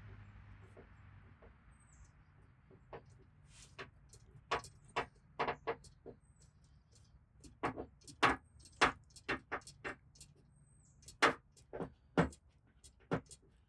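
Paintless dent repair on a car fender: an irregular string of sharp taps and clicks from the tool tips working the sheet metal, faint at first and louder in the second half, over a faint low hum.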